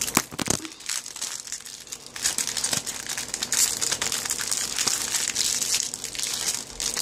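Popcorn bag crinkling and rustling as it is handled and unfolded, with many irregular crackles.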